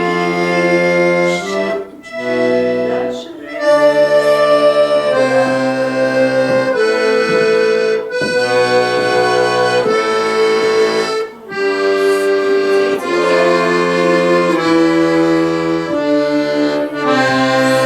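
Accordion playing a two-octave C major scale, held notes stepping from one to the next over a bass, with a few short breaks in the sound. The scale still comes with difficulty, the fingering not yet secure.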